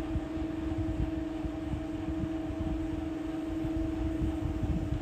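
A steady mechanical hum with wind rumbling unevenly on the microphone.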